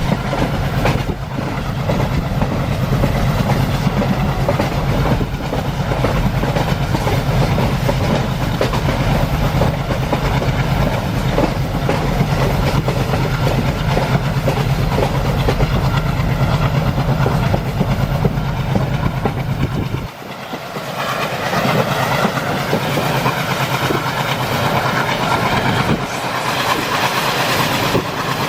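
ALCO WDG-3A diesel locomotive's 16-cylinder ALCO 251 engine chugging hard under load, heard from the train behind it, with wheels clattering over the rail joints. About two-thirds of the way through, the deep engine beat drops away and the rolling wheel and rail noise takes over.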